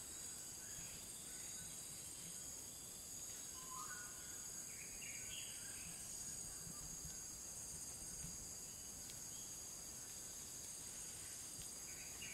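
Faint savanna ambience: a steady, high-pitched insect chorus, with a few short bird calls about four to five seconds in and again near the end.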